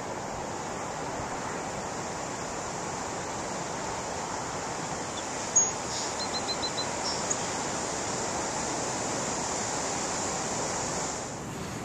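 Steady wash of ocean surf breaking. About halfway through there is one short sharp high sound, followed by four quick high chirps.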